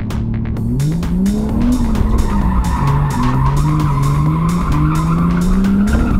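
Turbocharged BMW M50B25 straight-six, heard from inside the cabin, revving up and down under load while the car drifts, with tyres squealing. The engine climbs about a second in, dips near the three-second mark, then pulls steadily higher. Electronic music with a steady beat plays over it.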